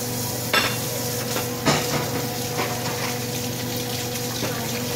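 Kitchen tap running with a steady hiss and hum. Two sharp knocks come about half a second and nearly two seconds in.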